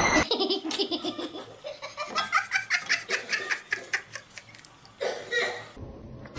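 A person laughing in a long run of quick, rhythmic bursts.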